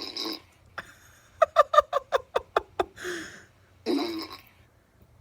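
A person laughing in a quick run of about ten short 'ha' pulses, followed by a breath and a brief voiced sound.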